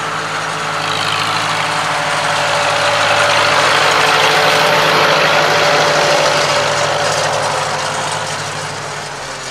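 Antique Farmall tractor's engine running at a steady low speed as it passes close by towing a hay wagon. It grows louder to a peak about midway, then fades as it moves off.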